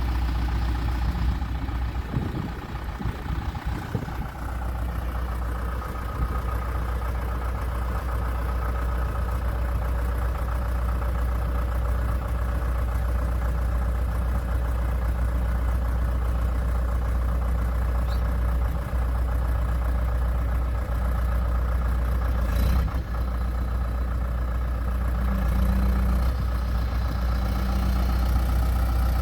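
2005 John Deere 310SG backhoe loader's four-cylinder diesel engine running steadily at a low, even speed. A few low thumps come about two to four seconds in, and a brief sharp clank later on.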